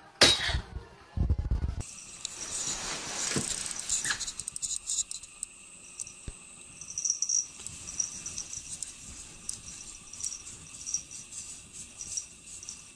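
A few loud, short sounds in the first two seconds, then paws scratching and rubbing against a snow-covered glass door, with many light clicks and scrapes over a steady hiss.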